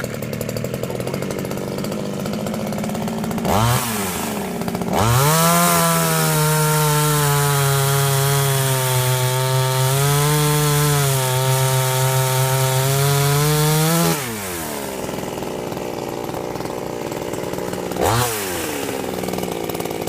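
Tatra Garden MS 150 small two-stroke top-handle chainsaw idling, revved briefly, then held at full throttle for about nine seconds while it cuts through a 15 cm log, its pitch sagging a little under load. It drops back to idle, then gets one more short rev near the end.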